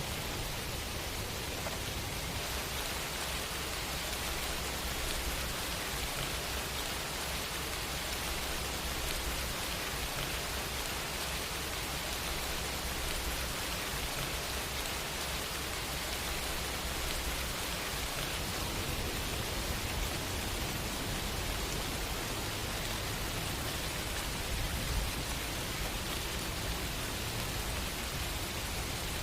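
Steady rain: an even wash of falling rain, with no thunder or other events standing out.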